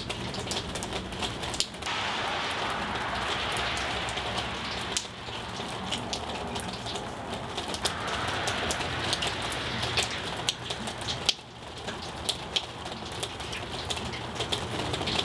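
Cutlery clinking against china plates, many quick sharp clicks over a steady hiss.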